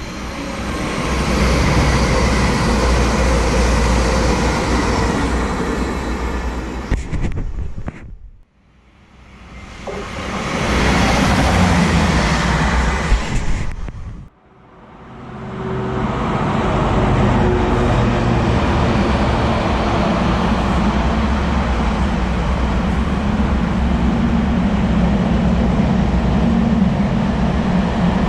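A high-speed Azuma passenger train passing at speed, loud, breaking off abruptly; after a second short passing-train clip that also cuts off suddenly, a container freight train rolls past with a steady low drone.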